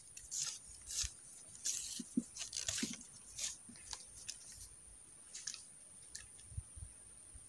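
Close-up handling noise: a run of short crunching and rustling crackles that thin out and stop about five seconds in. A faint steady high whine runs underneath.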